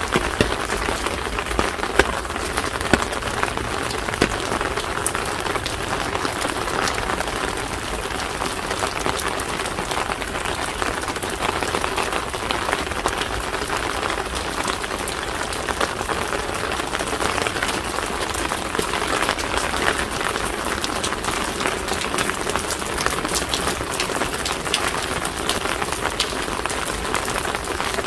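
Steady rain falling, a continuous hiss dotted with many sharp, separate drop impacts.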